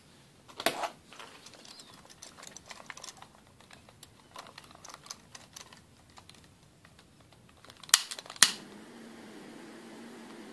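Small handling clicks and rustles of paracord and tools. About eight seconds in, two sharp clicks of a butane torch lighter being sparked, then the steady hiss of its flame, used to singe the cord ends.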